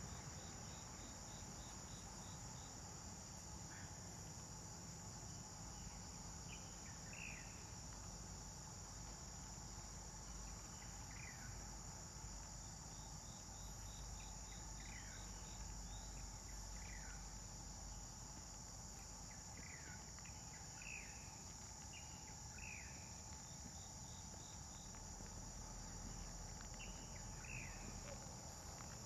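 Faint, steady high-pitched drone of insects, with short descending bird chirps every few seconds and a brief rapid trill twice.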